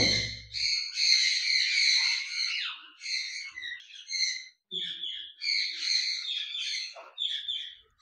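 A low thump at the start, then caged parrots calling: short, repeated high calls that break off and restart with brief gaps.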